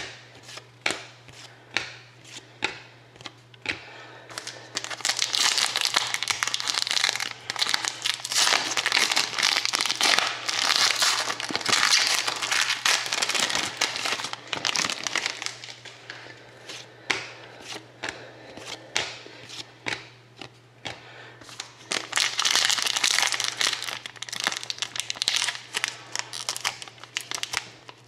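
Trading cards tapping and sliding against one another as they are flicked through, then long stretches of a foil card pack wrapper crinkling and tearing as it is handled and opened, twice.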